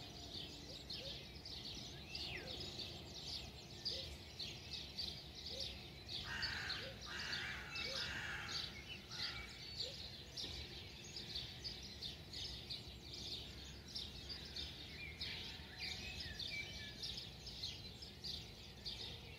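Many small birds chirping and twittering over one another without pause, with a few harsher, caw-like calls standing out about six to nine seconds in, over a low steady rumble.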